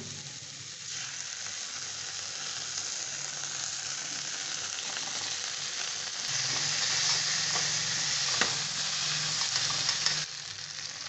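Chopped onion and capsicum sizzling in hot oil in a stainless-steel kadai while being stirred with a metal spatula and spoon. The sizzle grows louder about six seconds in, as chilli sauce goes into the pan, with one sharp click of metal on the pan, and it falls back near the end.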